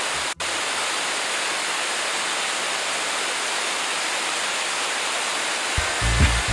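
Steady rush of a waterfall cascading over rock terraces, cutting out for an instant just after the start. Music with a heavy bass beat comes in near the end.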